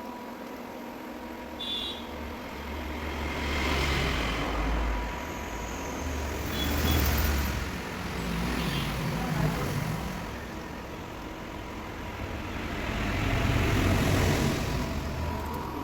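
Robot vacuum cleaner running, its motor and brushes humming steadily and swelling louder three times as it moves about.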